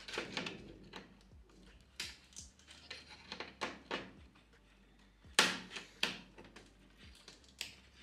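Scattered plastic clicks and knocks as a 24-pin ATX power cable connector is forced into its motherboard socket, with a sharp click about five and a half seconds in.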